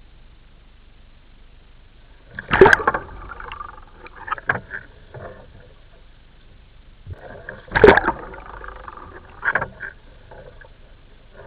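Water splashing around a kayak being rolled with a Greenland paddle: two loud splashes about five seconds apart, each followed by a second or two of smaller splashes and dripping.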